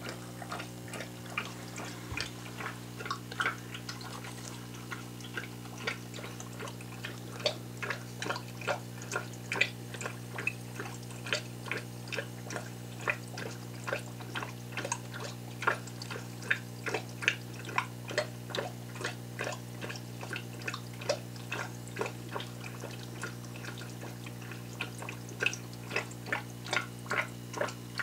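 Aquarium air bubbler in a side breeder box, gurgling and popping in quick short pops, roughly two a second, over a steady low hum. The bubbling airline creates the flow that sucks baby clownfish through the tube from the main tank into the breeder.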